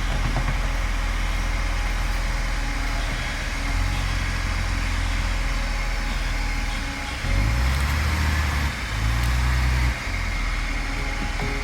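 Heavy diesel machinery engine running steadily, with two louder stretches between about seven and ten seconds in, where its low note shifts and briefly drops away in between.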